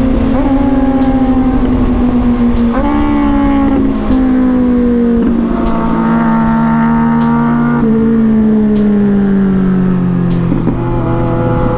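Sport motorcycle engine under way, its pitch sinking slowly as it slows, broken by several sudden jumps up in pitch as gears change, with a rise again near the end.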